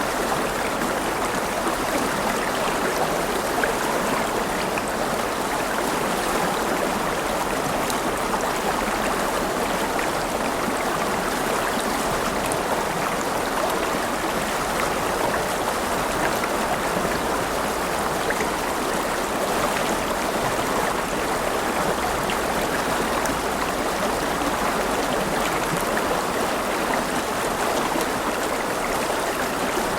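A river flowing: a steady, continuous rush and babble of running water over stones, with fine splashing and trickling on top.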